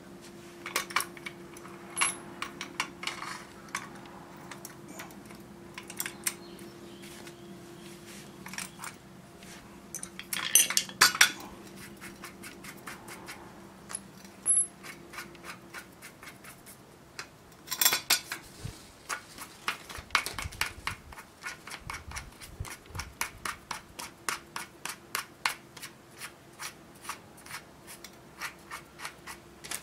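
Metal parts of a bench drill stand being handled, with scattered clinks and knocks of metal on metal. In the second half comes a long run of quick, even clicks, about three or four a second.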